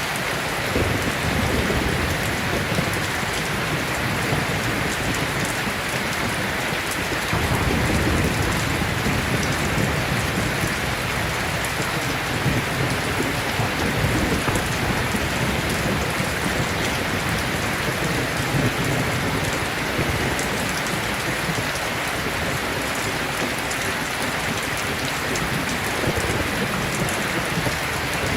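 Steady heavy rain with low rolling thunder rumbles swelling about a second in and again from about seven to ten seconds.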